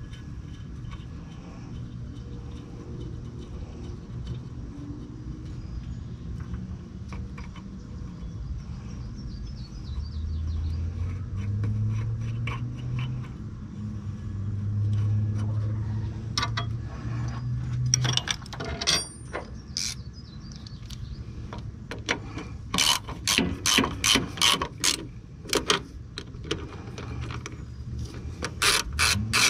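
A hand ratchet wrench clicking in quick runs of strokes as nuts are run down, starting about eighteen seconds in, over a steady low hum.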